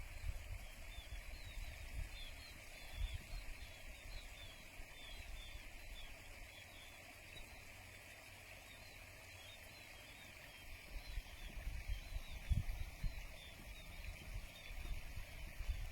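Small sparrow-like birds (pipit) chirping with many short, high chirps, over low rumbling that grows near the end.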